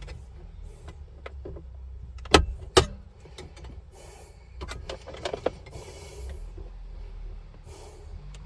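Plastic radio adapter plate being pushed into a car dashboard, with two loud sharp clicks about half a second apart as its tabs snap in, among smaller clicks and the scraping of plastic parts being handled.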